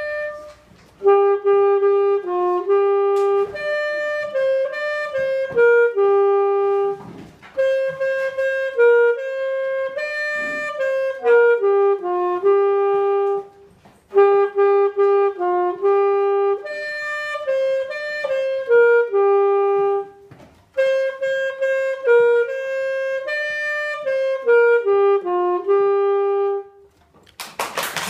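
Alto saxophone played solo by a young student: a simple melody in four phrases of about six seconds each, with short breaks for breath between them, stopping about a second before the end.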